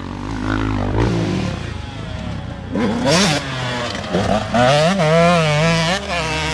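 Motocross dirt bike engine revving up and down as the rider works the throttle through a turn, the pitch rising, falling and wobbling quickly, loudest about five seconds in, over a steady lower engine hum.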